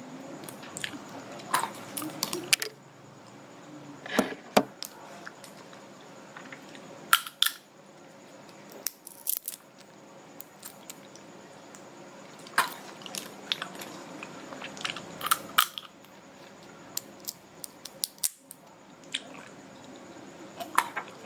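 A person cracking kuaci (dried seeds) open between the teeth: short, sharp cracks and clicks in little clusters every two to three seconds, with some soft chewing between them.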